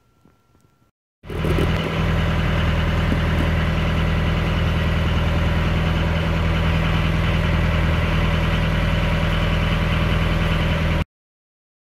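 Boat engine running steadily with an even low drone, starting about a second in and cutting off suddenly near the end.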